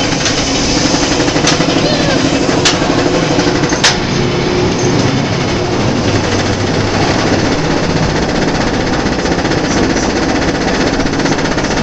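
Tatsu flying roller coaster train pulled up the lift hill, its lift chain and anti-rollback giving a steady rapid clatter. Three sharp clicks, about a second apart, sound in the first few seconds.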